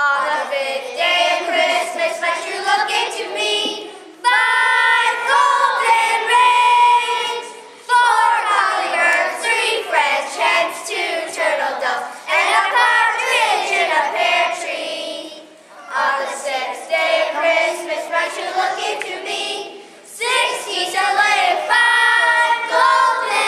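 A group of children singing together, in phrases of about four seconds each with short breaks between them.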